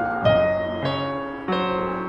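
Slow, gentle background piano music, a new note or chord struck every half second or so and left to fade.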